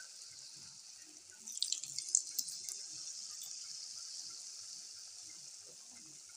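Coated potato strips deep-frying in hot oil in a kadhai: a steady sizzling hiss, with a burst of louder crackling and spitting about a second and a half in.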